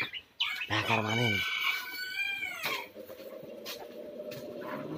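A rooster crowing once, starting about a second in and lasting around two seconds, its call falling away at the end. A faint steady hum follows.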